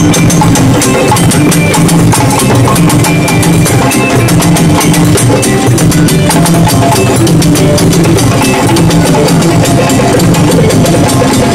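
African hand drums, a djembe and a rope-laced barrel drum on a stand among them, played together in a loud, fast, continuous group rhythm.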